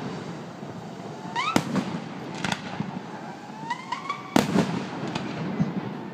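Fireworks display: aerial shells bursting with two loud bangs about three seconds apart, each just after a rising whistle, over a background of smaller pops and crackle.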